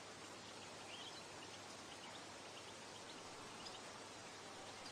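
Faint birdsong: scattered short, high chirps and twitters over a steady hiss of background noise.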